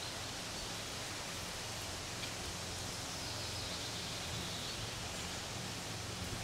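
Steady outdoor background noise: an even rustling hiss over a faint low hum, with no clear barks or other dog calls.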